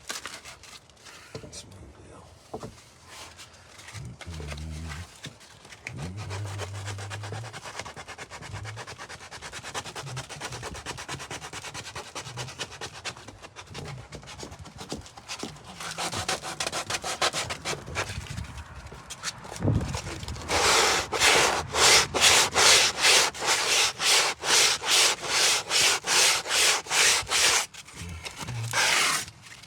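Hand sanding on the wooden brick mold: light rubbing at first, then, about two-thirds in, fast, even back-and-forth strokes, about three a second, that pause briefly near the end and start again.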